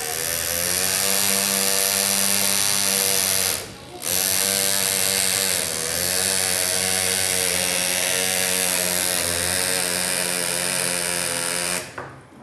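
Pneumatic engraver (Andu air-driven hand engraver) hammering its graver into a Harley-Davidson engine cover, a steady pitched buzz whose pitch wavers a little. It stops briefly about three and a half seconds in, then runs again until just before the end.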